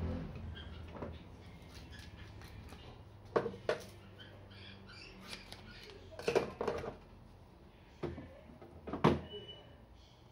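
Light knocks and clicks of a golf club shaft and small tools being handled at a workbench, in scattered twos and small clusters, the sharpest about nine seconds in. A low hum dies away in the first second.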